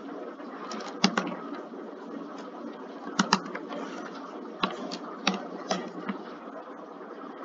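Computer keyboard and mouse clicks: about nine sharp clicks, several in close pairs, as a password is typed, over a steady background noise.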